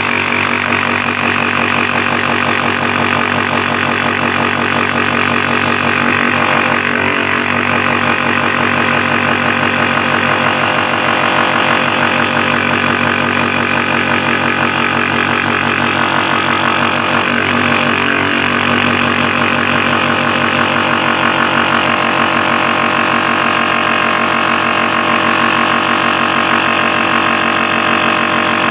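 Small Titan bench grinder running steadily, its sanding drum cutting a scarf along the edge of a thin plywood strip.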